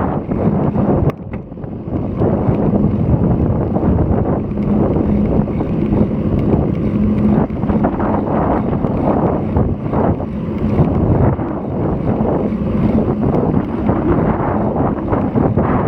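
Strong wind buffeting an action camera's microphone on a moving road bike, in gusty wind ahead of a typhoon, with a brief lull about a second in.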